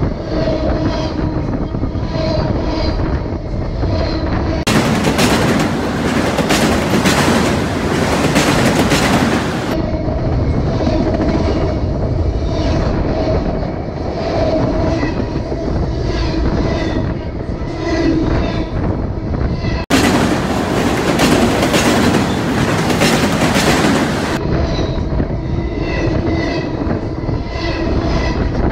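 Freight train cars rolling directly over a microphone lying between the rails: steel wheels running on the track with steady metallic ringing tones. Twice a brighter hiss swells up for about five seconds, then drops back.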